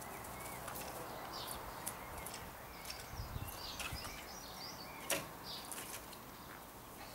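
Quiet garden ambience with small birds chirping now and then, and a few short sharp clicks or swishes, the loudest about five seconds in.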